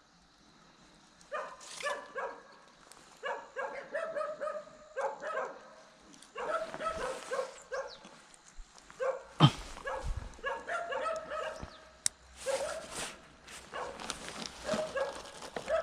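A dog barking repeatedly in quick runs of short barks. There is a single thump about halfway through.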